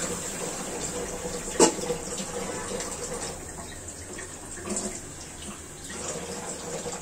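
Chickpea and potato curry simmering in a metal karai, a steady bubbling hiss of the liquid with a little water freshly added to cook the potatoes through. A single sharp click about one and a half seconds in, and a few soft knocks near the end.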